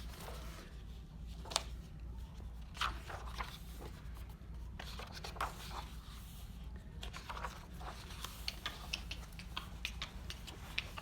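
Handling of a picture book: paper pages rustling and turning, with scattered soft taps and scrapes over a steady low hum.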